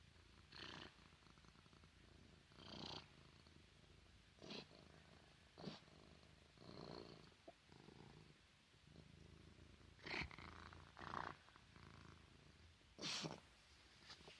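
A cat with feline asthma coughing: about eight short, raspy coughs at irregular intervals over a low, continuous purr-like rumble, the loudest coughs coming in the last few seconds.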